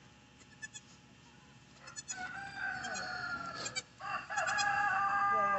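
A rooster crowing twice: two long, drawn-out calls, the first starting about two seconds in and the second a little after four seconds.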